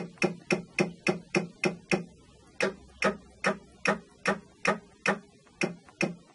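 Pfaff Creative Sensation embroidery machine clicking over and over as its hoop is jogged in small steps with the on-screen arrow, about two to three short clicks a second, to bring the needle exactly over the target point.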